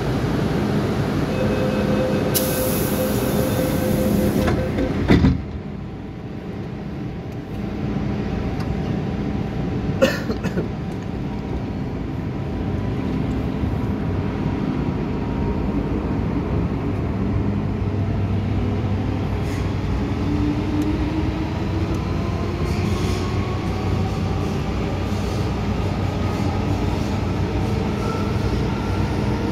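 MTR M-Train electric multiple unit running in a tunnel, heard from inside the car: a constant rumble of wheels on track with steady motor tones. A sharp knock comes about five seconds in, after which the sound drops. The motor tones slowly rise in pitch near the end.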